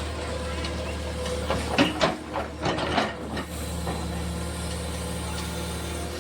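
JCB backhoe loader's diesel engine running steadily, with a run of knocks and clattering from about one and a half to three and a half seconds in.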